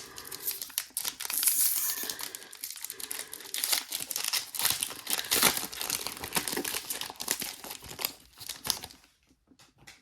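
Crinkling and rustling of a foil trading-card pack wrapper and cards being handled, a dense crackle for most of the time that stops near the end.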